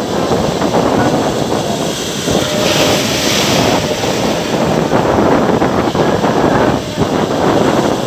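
Rough, wind-driven surf breaking and washing over a rocky shore, with strong wind buffeting the microphone. The surf swells louder with a hissing wash about three seconds in.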